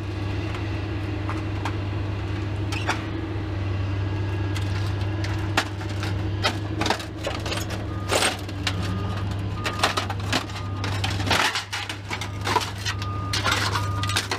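Scattered metallic clicks and knocks of parts from scrapped aluminum light fixtures being pried apart and handled, over a steady low hum. A short high beep sounds several times in the second half.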